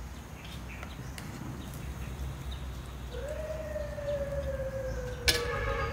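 A long wailing tone, starting about three seconds in, that rises briefly and then slowly falls in pitch for nearly three seconds. A short, louder sound breaks in near the end.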